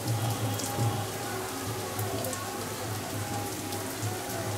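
Steady rain falling, with scattered drops ticking, over a low, wavering hum.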